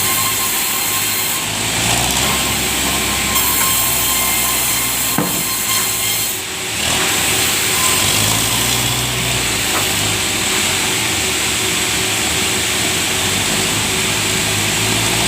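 Sawmill saw running steadily as it cuts through a large log, a loud continuous high-pitched whine and rasp, briefly easing about six seconds in before carrying on.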